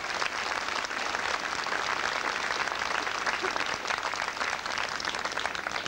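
Crowd applauding, dense steady clapping in response to a speech of thanks.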